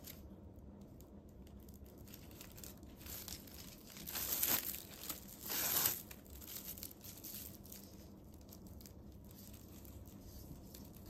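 Polyethylene raffia tape (Suzuran tape) crinkling and rustling as a tapestry needle draws it through crocheted stitches to sew the handle edges together. Twice, about four and five and a half seconds in, a long strand of tape is pulled through with a louder rustling swish.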